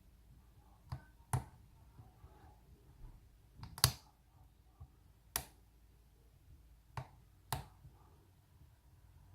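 Lock pick and tension wrench working the pin stack of an aluminium-bodied American Lock Company 1205 padlock: sharp metallic clicks, about seven in all, several coming in close pairs at uneven intervals, the loudest about four seconds in.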